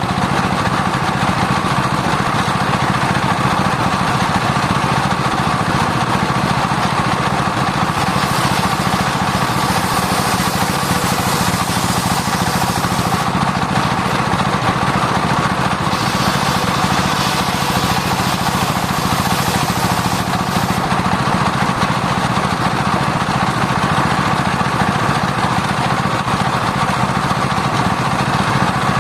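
Circular saw bench running steadily while sawing sengon wood. Twice, for about five seconds each, a harsher, higher hiss joins the running as the blade goes through the wood, then falls back to the saw running on its own.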